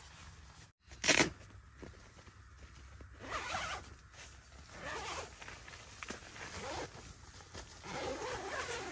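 A zipper pulled once, sharp and loud, about a second in, followed by several softer rustling, swishing strokes.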